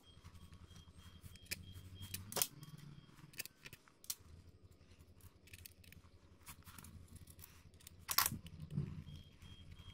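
Red plastic housing shell of a vintage Metabo electric drill being fitted over its motor and pressed into place by gloved hands: a run of small plastic clicks and knocks, with two sharper knocks about two and a half seconds in and again about eight seconds in, over a low steady hum.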